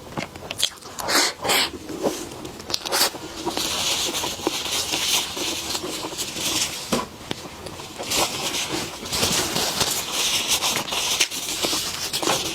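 Close-miked eating: bites and chewing with sharp clicks, then a crackly rustle from about three seconds in.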